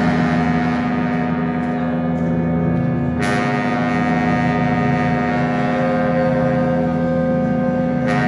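Live jazz ensemble of piano, woodwinds, trumpet, double bass and drums holding a long sustained chord, with a fresh bright attack about three seconds in and another near the end.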